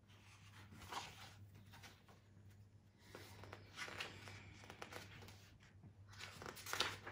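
Soft rustling of a paperback picture book's pages as the book is lowered and its page turned, in irregular handling rustles with a few light clicks.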